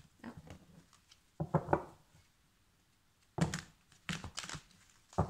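A Dreaming Way tarot deck being shuffled by hand, overhand, the cards rustling and knocking together in about five short bursts with quieter gaps between.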